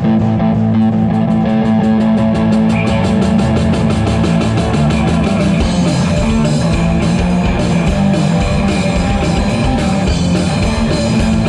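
A live rock band playing loud through a PA as a song begins: distorted electric guitar chords over a fast, even drum beat.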